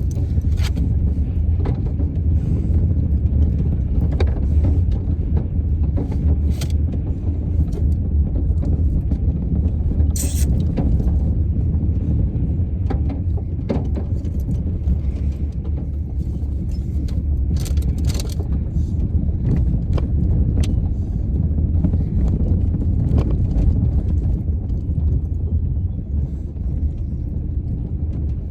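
Steady low rumble of a vehicle on the road, heard from inside the cabin, with occasional short clicks and rattles.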